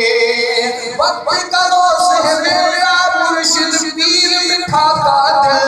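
A man singing an Urdu devotional song in praise of a spiritual guide, drawing out long held notes with melodic turns between them.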